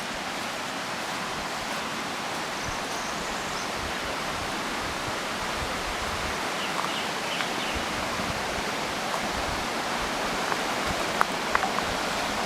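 Steady rushing of a running stream that grows slightly louder, with a few short sharp sounds near the end.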